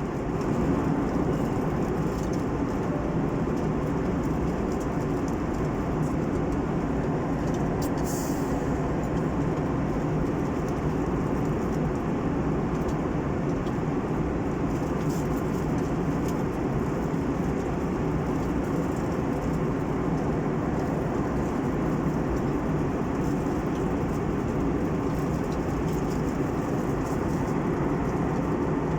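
Steady cabin noise of an airliner in cruise: the even rush of engines and airflow heard from inside the passenger cabin. A short high hiss cuts in briefly about eight seconds in.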